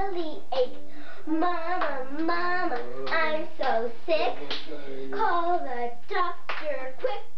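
Young girls chanting a sing-song clapping-game rhyme, with the slaps of their hands striking together through it.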